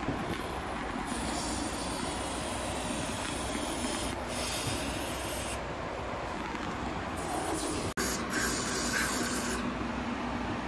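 Aerosol spray cleaner hissing into the openings of a car fuel tank: one long spray of about four and a half seconds with a brief break in it, then two shorter sprays near the end.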